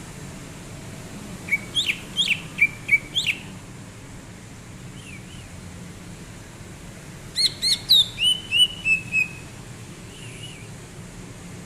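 Cucak ijo (green leafbird) singing in two quick bursts of sharp, sweeping whistled notes, about seven notes each. The second burst, about seven seconds in, ends in a short falling trill. A few faint notes come between the bursts over a steady low hum.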